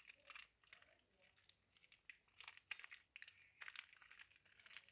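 Soaked, softened soap being squished and worked in a bowl, giving quiet, irregular crackles and clicks.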